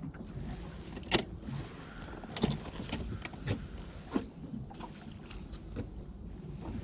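Scattered sharp clicks and knocks of egi squid jigs and a tackle bag being handled, the loudest about a second in and a cluster near the middle, over a steady low rumble of the boat.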